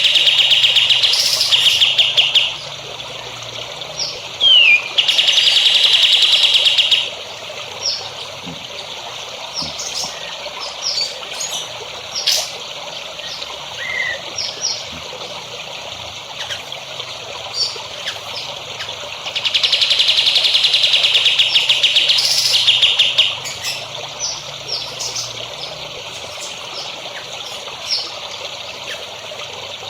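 Songbird song for bird training: loud, rapid buzzy trills lasting two to three seconds each, one at the start, one about five seconds in and a longer one near twenty seconds, with short chirps between them. Water trickles steadily underneath.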